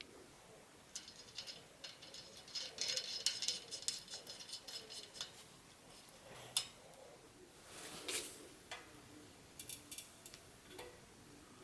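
Faint small metal clicks and a run of quick ratchet-like ticking as a bicycle cassette lockring is threaded on and the cassette shifts on the freehub, followed by a few separate sharp clicks.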